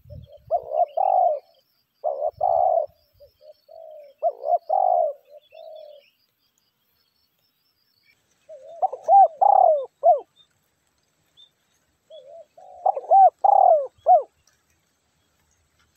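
Spotted dove cooing in repeated phrases through the first six seconds, then two more phrases after a pause, about 9 and 13 seconds in.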